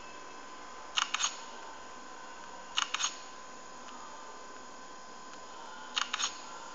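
Sharp clicks in three quick pairs, about a second in, near three seconds and about six seconds in, typical of buttons pressed on a mobile phone. A steady high whine runs under them.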